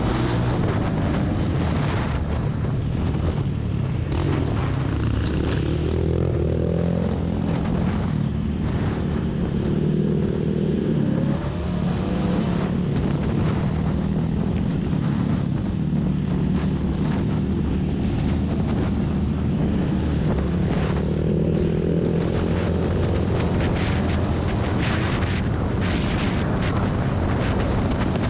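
Off-road rally vehicle's engine running hard, its pitch rising and falling a few times with the throttle, with frequent knocks and rattles throughout.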